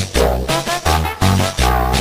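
Upbeat cumbia music with a steady bass beat and a wavering melody line on top.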